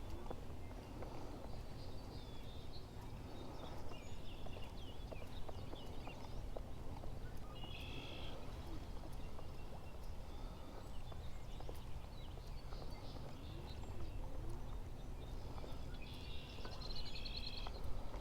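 Small birds chirping and trilling over a steady low rumble, with two louder trills, one midway and one near the end, and a few faint clicks.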